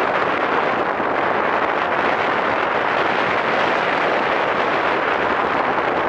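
Steady rush of wind on the microphone of a land yacht sailing fast across a dry lake bed, with the rolling of its wheels on the hard surface mixed in.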